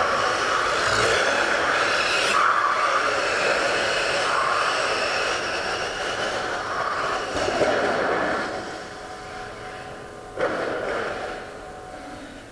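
Tamiya M05 electric RC car running laps: the motor and gear whine and the tyre noise go on steadily, then fade away about eight seconds in.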